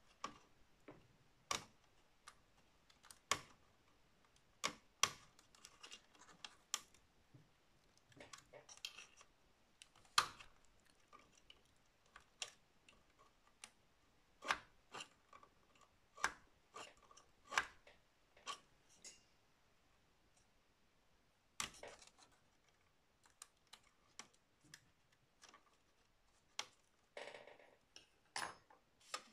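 Light, irregular clicks and taps of a thin metal pry tool working at a small plastic cable connector on a computer's metal chassis, prying to free the power cable's plug. There is a brief rustle near the end.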